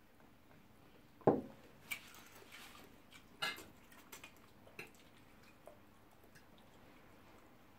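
Table-eating sounds: a drinking glass set down on the table with a dull knock about a second in, then forks clicking and scraping on ceramic plates and spaghetti being slurped, with a few light clicks dying away after about six seconds.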